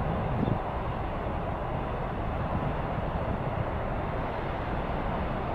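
Steady outdoor rumble and hiss of wind buffeting the microphone, with no distinct event standing out.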